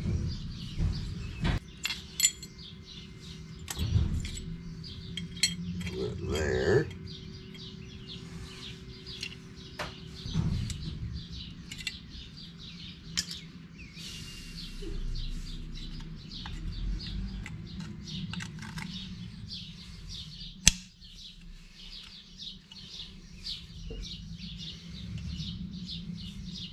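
Drum brake shoes and small brake hardware being handled: scattered clinks and knocks, with one sharp click about twenty seconds in. Birds chirp steadily in the background.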